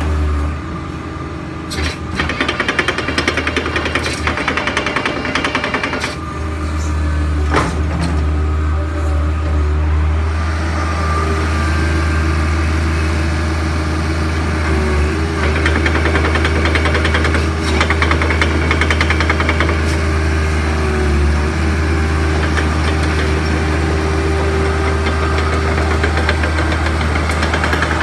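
Kobelco SK60-2 excavator's diesel engine running steadily with a knocking clatter, while the machine slews its upper structure and moves its arm.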